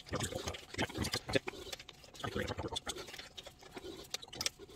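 A ratchet wrench clicking in quick, irregular strokes as it turns the forcing screw of a pulley puller, drawing the stock pulley off the supercharger snout.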